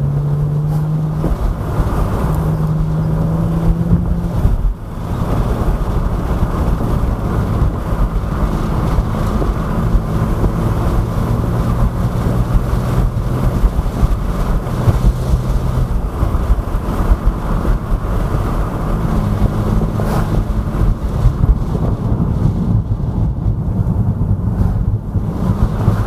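Mercedes-Benz W204 C-Class V6 engine running under way, its steady hum shifting in pitch in steps a few times, over wind and road noise.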